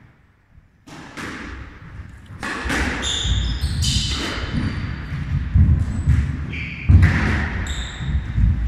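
Squash rally: the ball thuds repeatedly off rackets and walls, with short high squeaks of shoes on the court floor between the hits.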